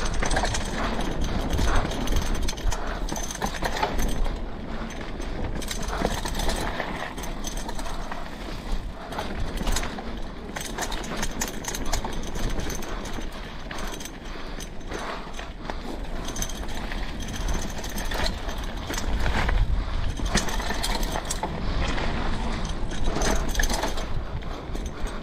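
Mountain bike riding down a woodland trail: tyres running over dirt and stones with continual irregular rattling and knocking of the bike, over a low rumble of wind on the microphone.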